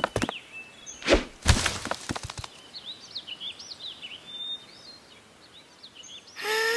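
Cartoon sound effects: a few sharp knocks at the start and a louder burst of hits about a second in, then faint birds chirping in the background. A voice starts a drawn-out cry near the end.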